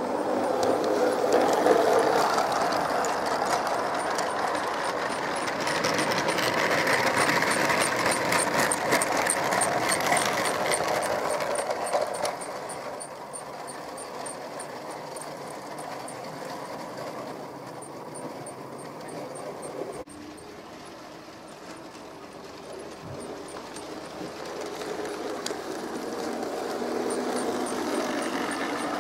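Large-scale garden model trains running on outdoor track: wheels rattling on the rails with a rapid, regular clicking. It is loudest in the first twelve seconds as a train passes, drops after a sudden cut, then builds again near the end as a locomotive and hopper wagons pass close.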